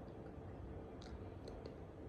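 A few faint, short clicks, about a second in and again around a second and a half, over a low steady hum.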